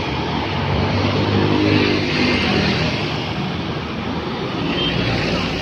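Road traffic passing close by: engine and tyre noise of a car, then a truck going past, loudest about two seconds in.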